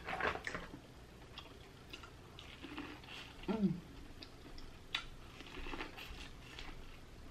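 Close-up eating sounds: wet chewing and mouth clicks, with a short hummed "mm" about three and a half seconds in. Near five seconds comes a sharp bite into a cob of seafood-boil corn.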